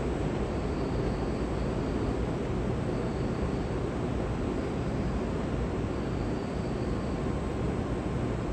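A steady low rumble and hiss of outdoor background noise, with no distinct events and no fade.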